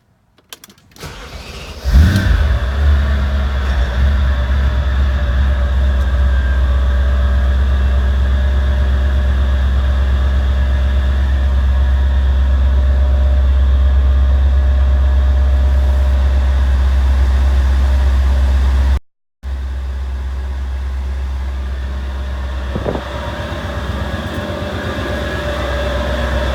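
Supercharged 4.2-litre V8 of a 2004 Audi S4 cold-started: after brief cranking it catches about two seconds in and then idles steadily. The sound drops out completely for a moment about two-thirds of the way through and comes back slightly quieter.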